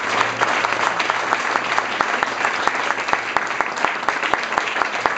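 A small crowd applauding, many hand claps overlapping steadily throughout.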